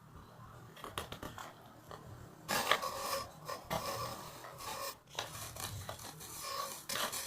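Rubbing and scraping handling noises in irregular bursts, louder from about two and a half seconds in.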